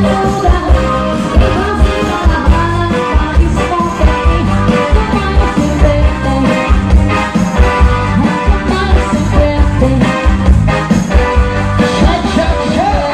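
Live band music in a cha-cha-cha rhythm, with a singer over a steady, heavy beat.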